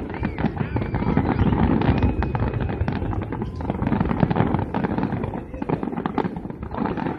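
Fireworks display going off: a dense, continuous run of crackling and popping bursts with low booms underneath.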